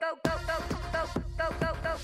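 Electronic dance music with a fast, steady beat and a repeating synth figure; the bass and beat drop back in a moment after the start following a brief break.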